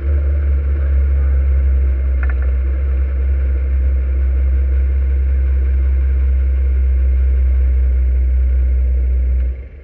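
Race car engine idling, picked up by its own onboard camera as a loud, steady deep rumble. A brief high chirp sounds about two seconds in, and the rumble drops away sharply just before the end.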